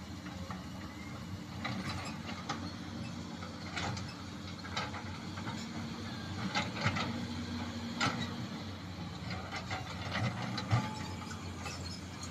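Excavator diesel engines running steadily, with scattered sharp knocks and clacks as the buckets dig into rocks underwater.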